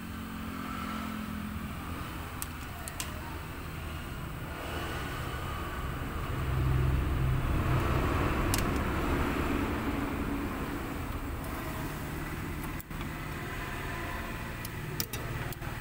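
A vehicle engine running nearby, a low rumble that swells to its loudest about halfway through and then eases off. A few light metallic clicks from the drum brake's shoe springs and pliers as they are worked by hand.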